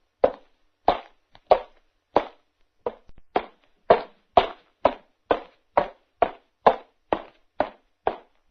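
Footsteps of a person walking at a steady pace, each step a short separate impact, about sixteen in all; the pace quickens slightly about three seconds in.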